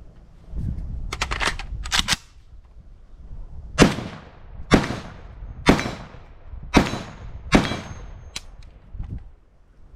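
Galil rifle fired five single shots, about one a second, each sharp crack trailing off in echo. A quick cluster of clicks and rattles comes before the first shot.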